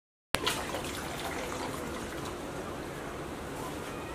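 A steady, watery hiss with faint scattered crackles from a pot of water heating over an open wood fire. It starts after a brief dropout with a sharp click.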